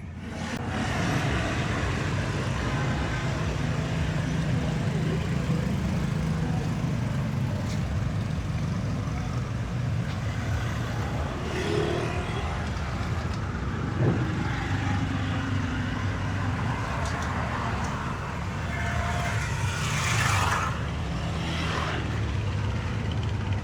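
Motor vehicle engine and road noise as a steady low rumble, with a brief louder rush of noise near the end.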